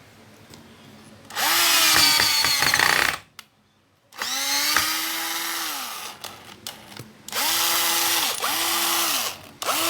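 Black & Decker 18V cordless drill run in about five bursts on the trigger, its motor whirring up to speed and winding down after each release.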